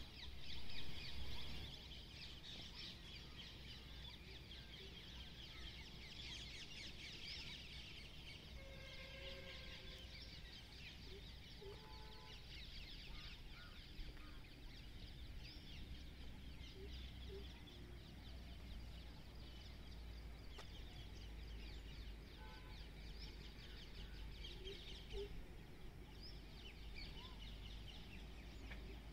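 Faint outdoor ambience of many birds chirping and calling together, with a few short whistled notes, over a low steady wind rumble; a couple of louder bumps come right at the start.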